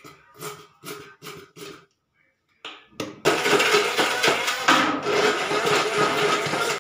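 A few light knocks, then about three seconds in an electric hand blender starts up and runs steadily, blending milk, dates, peanuts, banana and honey into a thick shake. Its sound dips briefly partway through and cuts off suddenly at the end.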